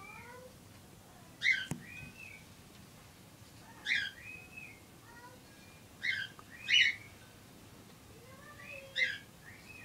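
Five short, high chirping calls spaced a second or two apart, with softer whistled notes that rise and fall between them.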